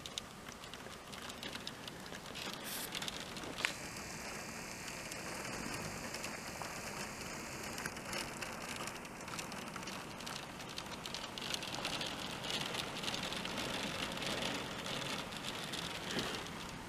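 Hail and rain pattering on wooden decking and a garden table: a dense, steady crackle of many small impacts that grows somewhat louder in the second half, with one sharper tick a few seconds in.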